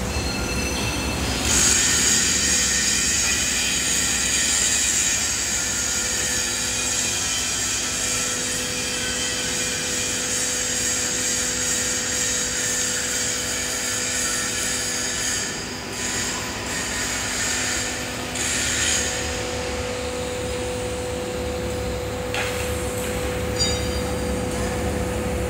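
Rotary screw air compressor running unloaded: a steady hum under a loud high hiss, which dips briefly twice in the second half.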